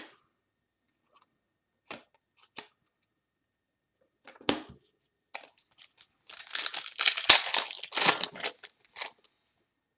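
A few light taps of cards set down on a table, then a foil Panini Prizm trading-card pack torn open and crinkled, loudest from about six to eight and a half seconds in.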